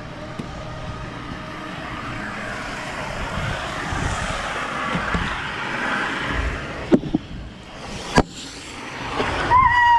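Rushing water and wind noise on a handheld action camera sliding down a water slide, building steadily, with two sharp knocks about seven and eight seconds in. Near the end a rider's long, held yell starts.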